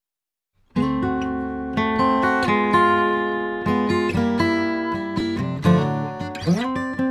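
Background music: plucked acoustic guitar notes, starting about three-quarters of a second in after a moment of silence, with a rising slide near the end.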